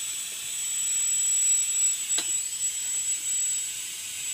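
Steady high-voltage hiss and a constant high-pitched whine from a powered CRT TV chassis, its EHT cap off the picture tube and discharging. The EHT is running too high. One short click about two seconds in.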